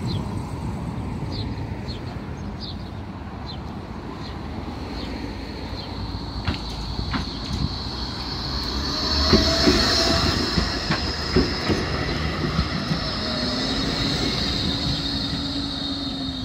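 Tram running past, a steady rumble that grows loudest a little after the middle, with a high wheel squeal and sharp clicks of the wheels over the rail joints.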